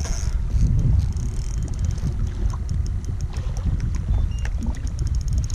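Wind buffeting the microphone on a small boat on open water: a steady low rumble. A faint, rapid, high ticking, about five a second, runs through the second half.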